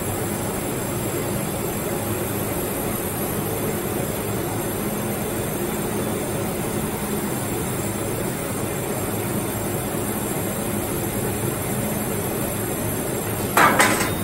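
Laser cutting machine running steadily while cutting 15 mm acrylic, a continuous machine rumble and hiss. Near the end a sudden short louder hiss as the cutting head lifts off the work.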